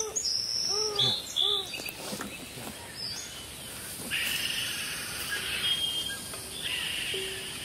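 Insects buzzing in the woods, a dense high-pitched drone that comes in about four seconds in.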